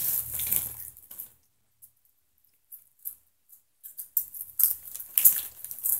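Rustling and scraping handling noise close to the microphone, in two spells: one in the first second and another from about four seconds in. Between them is a near-silent gap with a few faint ticks.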